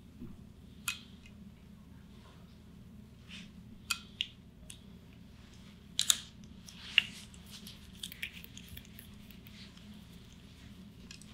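Light handling noises from a chiropractic examination: scattered soft clicks and rustles, the loudest a pair of sharp clicks about six and seven seconds in, over a faint room hum.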